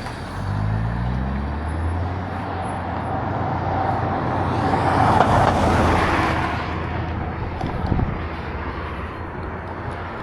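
Vehicle engine revving up at the start, then road and wind noise that swells to its loudest about five to six seconds in and fades away, like a vehicle passing. A short knock comes near the end.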